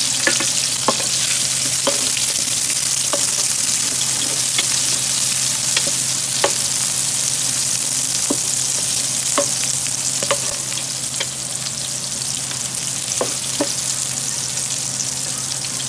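Minced garlic and sliced onion sizzling in hot oil in a metal pot: a steady hiss with scattered small clicks as a wooden spoon stirs them. The sizzle eases slightly about eleven seconds in.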